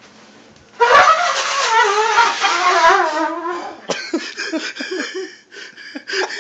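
A trumpet blown hard by an unskilled player: a loud, wavering blast starts about a second in and sags in pitch over about two seconds. A run of shorter, choppy sounds follows for the last few seconds.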